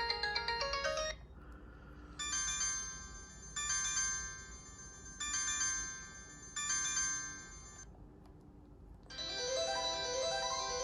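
Built-in ringtones of a Kyocera DuraXV E4520 flip phone playing from its speaker: a melodic tune ends about a second in, then a bright chime-like ring sounds four times, each about a second and a half long, and a new tune with rising runs of notes starts near the end.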